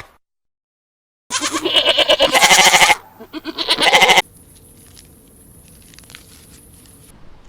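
A goat bleating twice, two loud quavering calls a little over a second in, the first longer than the second, then a faint steady background.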